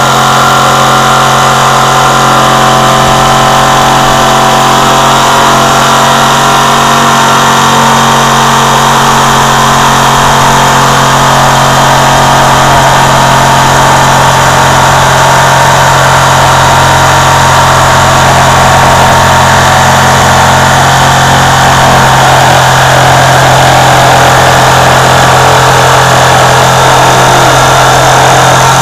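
Handheld electric power tool's motor running continuously and loudly, close by.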